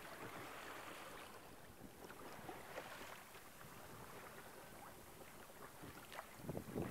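Faint wash of water moving past a sailboat's hull under way, with light wind on the microphone. A short, louder bump near the end.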